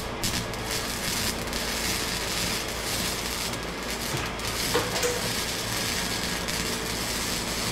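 Wire-feed (MIG) welding arc crackling steadily as a bead is laid on a steel exhaust pipe joint.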